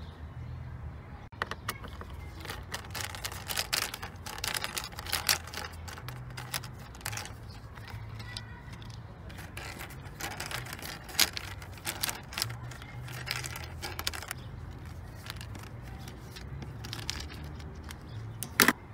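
A Torx screwdriver unscrewing the screws of a plastic air filter housing cover, heard as many small irregular clicks and scrapes of metal on plastic, with a sharp knock near the end. A low steady hum runs underneath.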